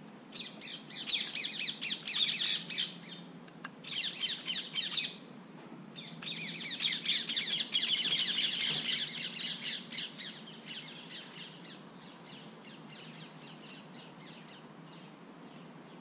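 Bird calls in rapid, chattering bursts: three loud runs of quick, high, scratchy notes, then a fainter run trailing off near the end.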